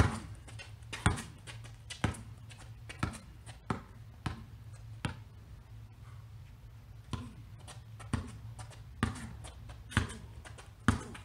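Basketball bouncing on a concrete driveway in a dribble of about one bounce a second, as the dribbler works between-the-legs hesitation moves. The bounces grow fainter in the middle and louder again near the end.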